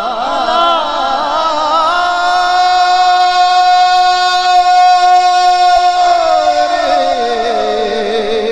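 A man singing a devotional Urdu kalam (naat) into a microphone: wavering melodic runs, then one long steady high note held for about four seconds, breaking into a wavering descent near the end.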